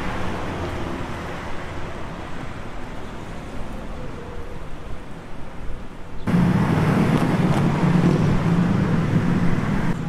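City street traffic noise: a steady rumble of passing cars that jumps abruptly louder and heavier about six seconds in.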